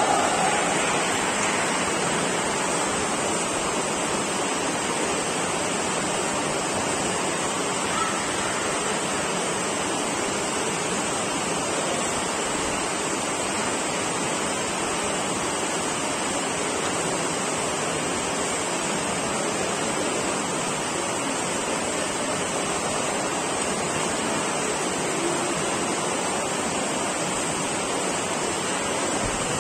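Steady rushing background noise of a large indoor sports hall, even and unchanging, with no clear shouts or footfalls standing out.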